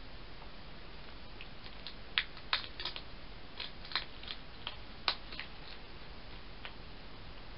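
Hedgehog crunching dry food with its head in a feeding box: a dozen or so sharp, irregular crunches and clicks, bunched between about two and five seconds in.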